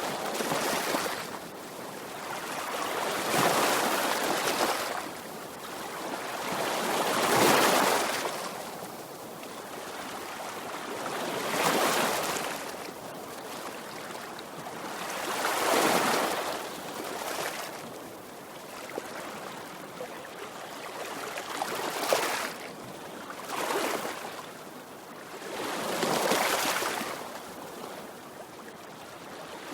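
Sea waves breaking and washing up, a rush of surf that swells and fades about eight times, every few seconds.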